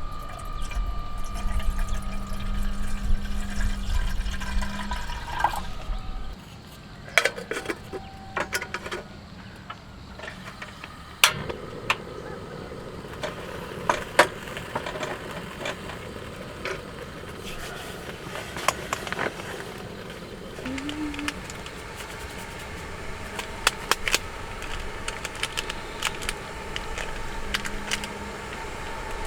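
Water being poured and sloshing, with many short clicks and knocks of things being handled. A low rumble with a steady hum fills the first six seconds, then stops.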